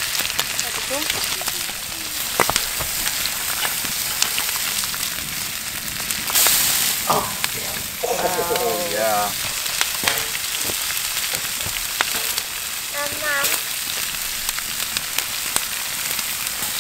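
Rainbow trout fillets sizzling on a wire grill rack over a wood fire, a steady hiss scattered with small crackling pops, with a brief louder spell about six seconds in.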